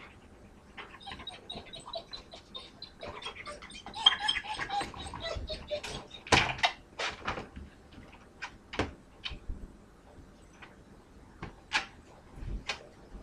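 Wire dog crate rattling and clinking as its door latch is worked from outside and the door comes open, with sharp metal clicks scattered throughout and a busier stretch of rattling about four seconds in.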